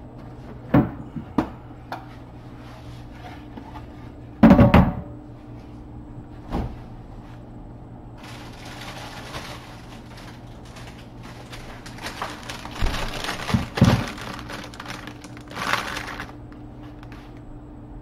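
Kitchen setup handling: a few knocks and one loud thunk about four seconds in as a bamboo cutting board is laid over the sink, then a plastic bag of ingredients rustling and being set down, with more knocks, over a steady low hum.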